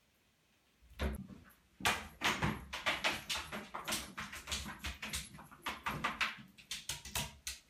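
Cat pawing and batting at a thin stream of tap water in a bathtub: a quick, irregular run of splashes and knocks against the tub, starting with one knock about a second in and going on several times a second after that.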